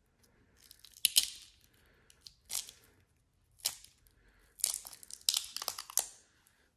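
Silicone dice mold flexed and peeled off cured resin dice, giving crisp crackling crunches as the resin breaks free. There is a sharp crunch about a second in, two shorter single crunches, then a quick run of crackles near the end.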